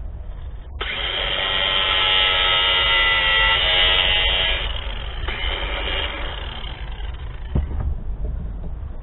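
Small electric motor running with a steady whine. It starts abruptly about a second in, is loudest for the next few seconds, then eases off and fades.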